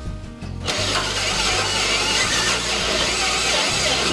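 Cordless drill with a twist bit boring through the car body's steel sheet metal. The motor whirs and the bit cuts, getting louder and denser about a second in.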